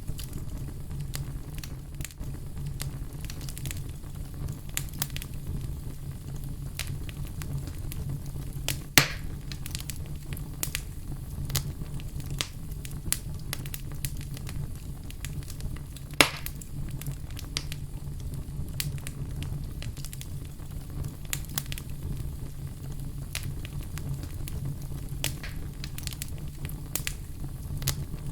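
Fireplace fire crackling, with a steady low rumble of flames and frequent small crackles. Two louder sharp pops come about nine seconds and about sixteen seconds in.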